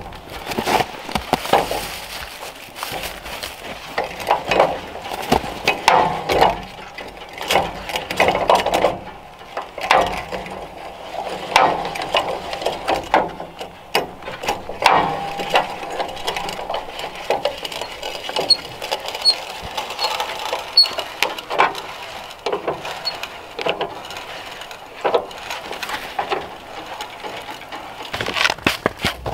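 Side-wind jack stand on a portable sawmill's frame being cranked by hand, its gear and handle making an uneven run of clicks and scrapes.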